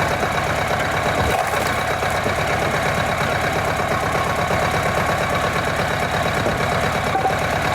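Engine of a log splitter running steadily at an even speed, with a faint click about a second in.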